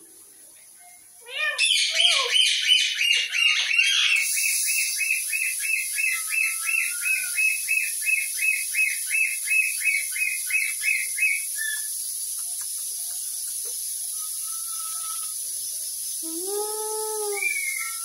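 Rose-ringed parakeet giving a fast run of repeated high chirps, about four a second, that stops abruptly about eleven seconds in. Then comes a short single whistle and, near the end, a lower drawn-out call that rises and falls. A steady high hiss comes in about four seconds in and stays.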